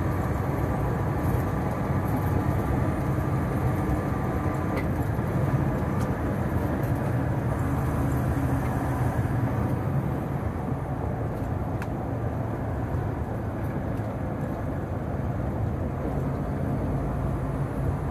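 Steady engine drone and road noise inside the cab of a fully loaded Freightliner semi truck cruising at highway speed, a little quieter in the second half as it slows.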